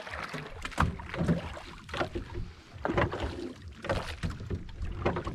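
A wooden oar paddling a small boat, splashing through the water with a stroke about once a second.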